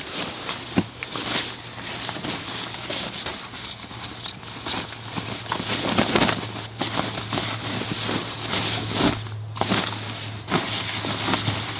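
Irregular rustling, crackling and small knocks of someone handling and rummaging through gear, over a faint steady low hum.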